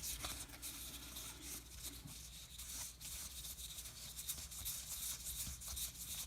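Baseball trading cards being handled: faint rubbing and light ticks of card stock sliding against card.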